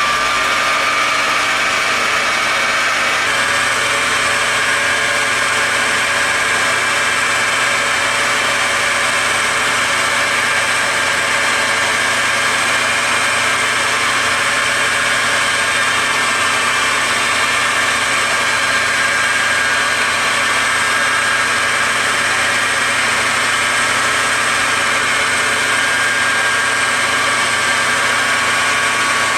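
Metal lathe running at about 1550 RPM while turning an aluminium pulley blank: a steady machine whine with several held tones. About three seconds in, a high thin tone joins, likely the tool starting its cut.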